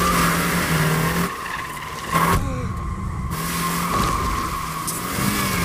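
Car tyres squealing in a long, steady screech over the running engine, the sound of a car spinning its wheels in thick tyre smoke. The squeal drops away briefly just after a second in, and a short loud burst comes just past two seconds.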